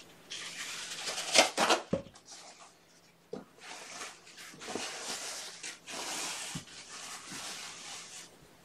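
Paper towels being pulled off the roll, torn and crumpled, then rubbed over the floor to wipe up kitten vomit: paper rustling and crinkling, loudest about a second and a half in.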